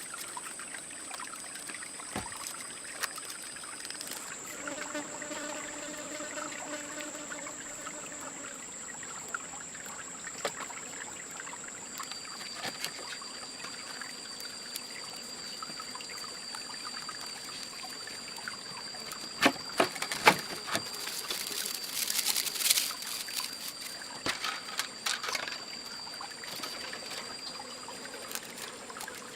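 Water trickling, under a steady high-pitched whine. About two-thirds of the way through comes a cluster of sharp knocks and clatter, the loudest sounds.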